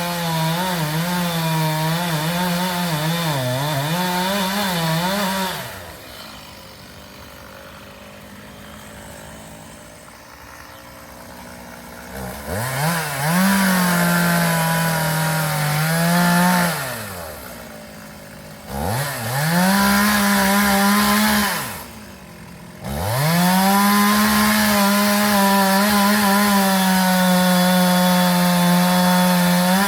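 Chainsaw run at full throttle four times, dropping back to a low idle between runs. Its pitch dips and wavers under load as the chain cuts wood.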